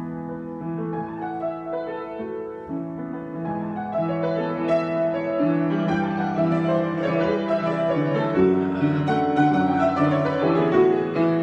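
Solo piano improvisation: sustained chords and melody notes ringing together, the playing growing fuller and louder about four seconds in.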